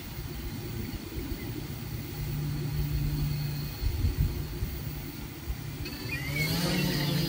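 Blade 350 QX quadcopter's four brushless motors turning its props on the ground under low wind rumble on the microphone. About six seconds in they spool up with a rising whine, throttle being given for takeoff.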